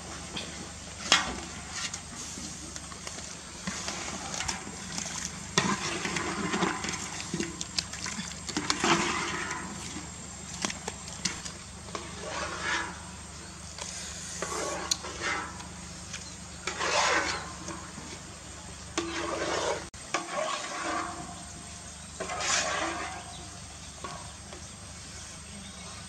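Boiled eggs being scooped out of a large wok of hot water with a woven bamboo basket: repeated splashing and water draining, with a sharp knock about a second in.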